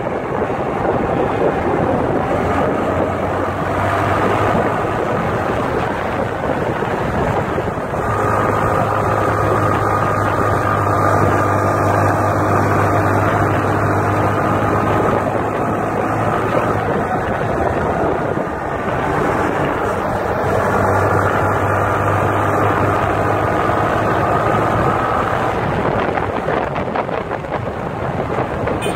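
Motorcycle riding at speed: wind rushing over the microphone with a steady engine hum beneath it, the engine note dropping away a few times and coming back.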